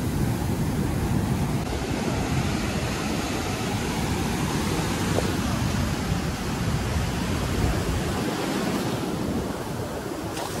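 Surf washing up onto a sandy beach as a steady rushing wash, with wind buffeting the microphone.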